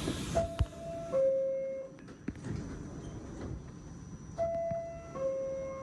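Two-note falling door chime of an R46 subway car, sounding twice a few seconds apart: the signal that the doors are about to close. A couple of knocks come just as the first chime starts.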